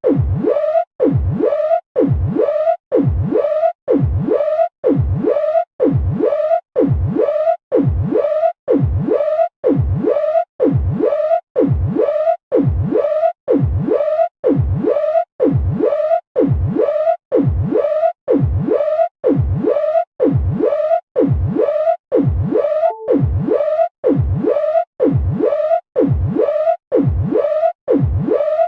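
Submarine alarm: a short rising whoop repeated about once a second.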